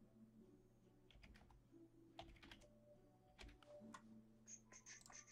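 Faint computer keyboard typing: a scatter of light, irregular key clicks over a low steady hum.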